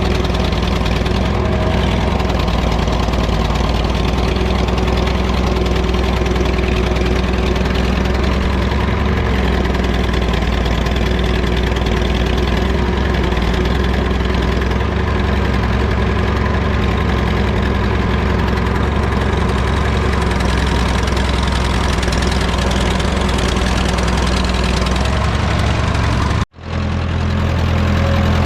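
Old David Brown tractor engine idling steadily, just started cold with help from starting fluid. Near the end it cuts out for an instant and comes back at a different pitch.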